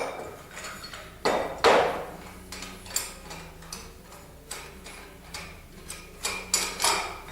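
Metal parts of a paintless dent repair stand knocking and clinking as the stand is taken apart, with the loudest knocks about a second and a half in and another cluster near the end.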